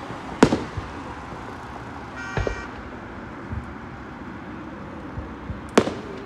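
Two aerial firework shells bursting with sharp bangs, about half a second in and again near the end, each followed by a short echo. A brief steady high tone sounds about two seconds in.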